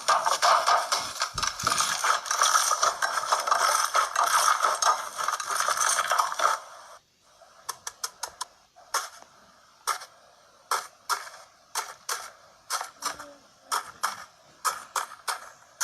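Slime being squeezed and kneaded by hand: a dense run of crackling and clicking for about six and a half seconds, then a short pause and separate sharp clicks and pops, about one or two a second.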